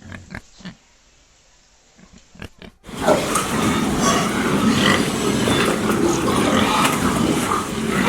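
Pigs grunting: a few short separate grunts, then, suddenly about three seconds in, a loud, dense din of many pigs grunting at once.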